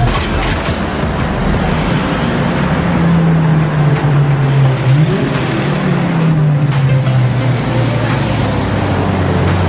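Car engine running at low revs amid road traffic noise, its pitch rising a little about three seconds in and sinking back over the second half.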